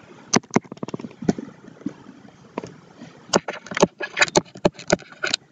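Stylus tapping and scratching on a tablet screen during handwriting: a string of sharp clicks, sparse at first and coming thick and fast from about three seconds in.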